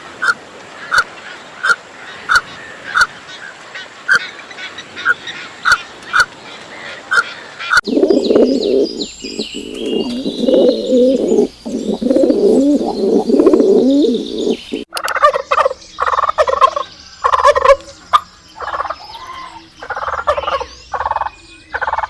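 Poultry calling in three successive clips. First a short call repeats regularly, about every two-thirds of a second. Then comes about seven seconds of dense, overlapping calling from a flock, and then louder separate calls with short gaps between them.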